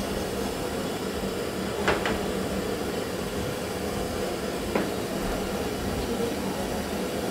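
Commercial gas burner on a high flame under a pan of frying meat: a steady rushing burner noise mixed with sizzling. Two short clicks sound, about two seconds in and again near the five-second mark.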